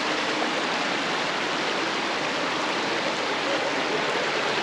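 Shallow mountain creek rushing over rocks, a steady even rush of water.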